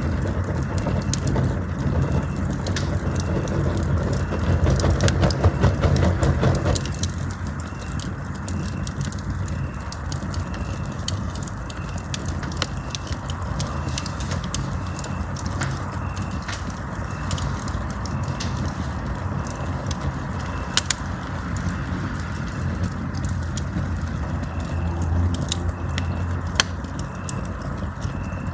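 Campfire burning, with frequent small crackles and pops over a steady low rush of flame; the low rumble drops noticeably about seven seconds in.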